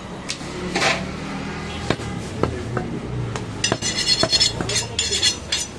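Butcher's knife cutting goat meat on a wooden chopping block, with several sharp separate knocks of the blade on the wood. A quick run of bright clinking comes about two-thirds of the way in.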